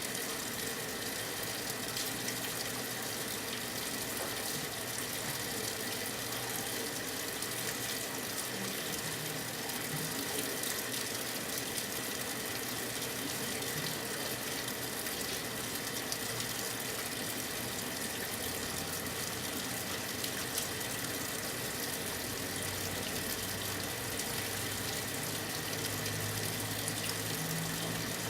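Brastemp 9 kg washing machine filling with water: a steady rush of water into the tub. A low hum comes in near the end.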